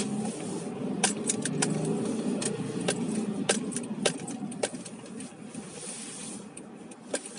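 Car cabin noise while driving slowly: a low engine and road hum, with about a dozen sharp, irregular clicks and ticks over it. The hum eases off in the second half.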